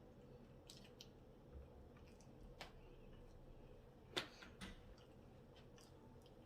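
Near silence broken by a few faint, wet mouth clicks and smacks from eating ribs, the sharpest about four seconds in.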